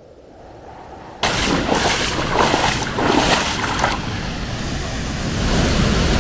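Rushing, splashing water that starts abruptly about a second in, surging unevenly for a few seconds and then running as a steady wash of noise.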